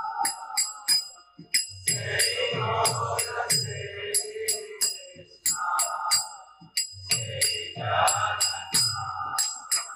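Devotional kirtan music between sung lines: small brass hand cymbals (karatalas) keep a steady beat of about three to four strikes a second. Underneath are a low drum in two stretches and a sustained melodic part.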